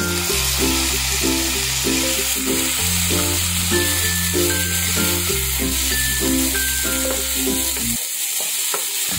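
Chopped tomatoes sizzling as they hit hot fried onions in a non-stick pan and are stirred with a spatula; the frying hiss starts the moment they land. Background music plays throughout, its bass dropping out about a second before the end.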